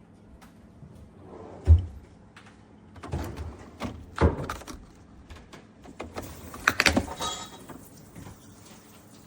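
A run of handling knocks and clunks: a heavy thud about two seconds in, then clusters of sharper knocks around four seconds and again near seven seconds.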